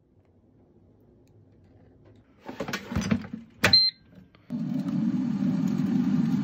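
Rustling and handling as food goes into an air fryer basket, then a click with a short high electronic beep, after which a Zenus air fryer's fan starts and runs with a steady hum as it begins cooking.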